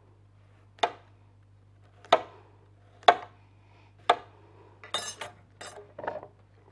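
Knife cutting through a potato onto a cutting board: four sharp chops about a second apart, then a quicker run of lighter knocks and scrapes near the end.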